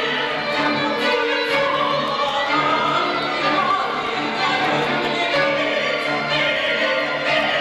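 Chamber orchestra with solo violin and a mezzo-soprano voice performing classical music: the low strings repeat short notes while the violin and voice hold wavering lines above.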